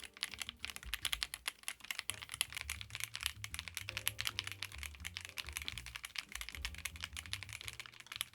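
Fast, continuous typing on a MonsGeek M1W mechanical keyboard with an aluminium case and gasket mount, several key presses a second, each a crisp click.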